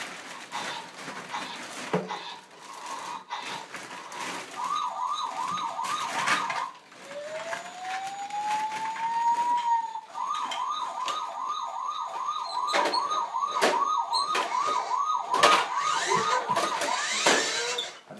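Battery-powered toy siren sounding: a fast rising yelp repeated about three times a second, broken by one slow rising wail, then yelping again for several seconds. Plastic toys knock and clatter throughout.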